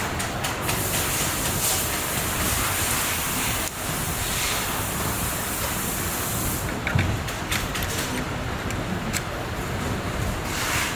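Steady rushing background noise. From about two-thirds of the way through come a series of light clicks and knocks, as the shaft, gear and rollers of an ATM cassette note feeder are handled in its plastic frame.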